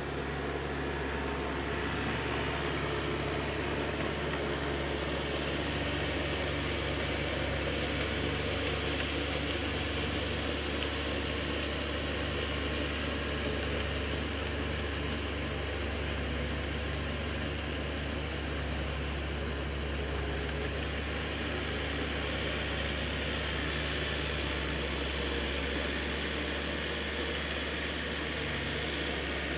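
Tractor engine running as a low, steady drone, working under load through the mud of a flooded rice paddy.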